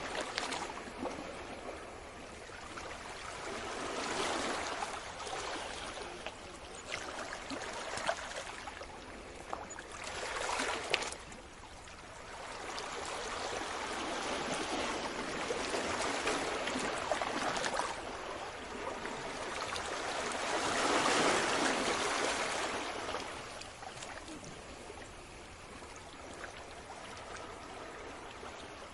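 Sea waves washing in and drawing back, each surge swelling and fading over a few seconds, the biggest about two-thirds of the way through, with a few sharp ticks.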